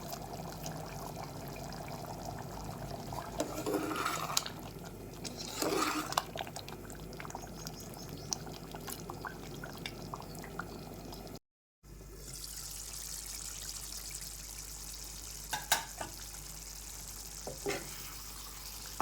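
Chicken curry simmering in a pan on the stove, a steady bubbling hiss, with a few light knocks of a utensil. It breaks off briefly about halfway.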